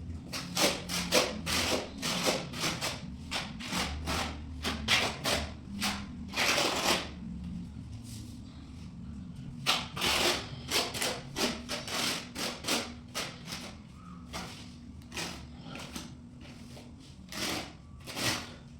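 Irregular series of short scraping or rubbing strokes, several a second, with a lull in the middle; a faint steady low hum underneath.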